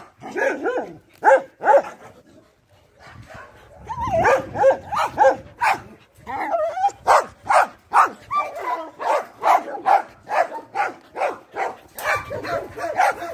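Dogs barking over and over in short, quick barks, several a second, with yips and whimpers mixed in and a brief lull about two seconds in.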